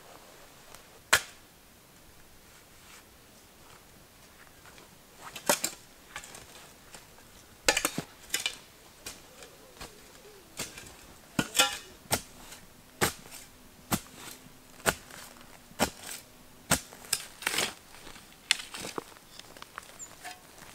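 Hand digging into leaf-covered forest soil with a shovel: a series of sharp chops and scrapes, a few at first, then about one a second.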